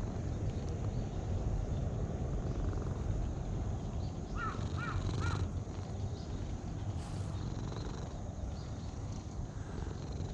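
Domestic cat purring steadily up close while being stroked. About four seconds in, a bird calls three times in quick succession in the background.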